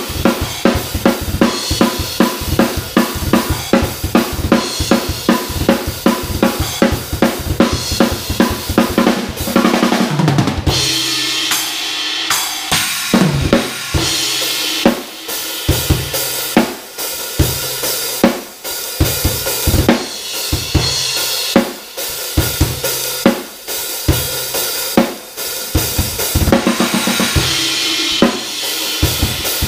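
A full drum kit being played: snare, bass drum and cymbals in a fast, steady beat. About ten seconds in it breaks into a fill and drops to a sparser groove with crash cymbal washes.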